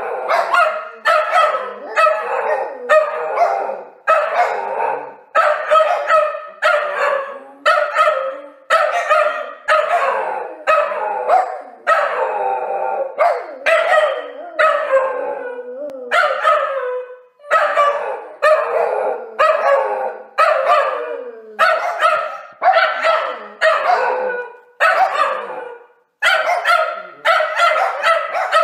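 An angry dog barking in a long, rapid series, about two barks a second, with short breaks about two-thirds of the way through and near the end.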